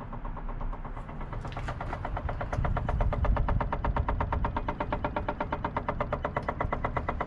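Case 590 Super N backhoe's diesel engine idling with a rapid, even knocking over the running engine, starting about a second in and getting louder around the middle. The knock is of unknown cause, and the seller thinks it could be the fuel pump.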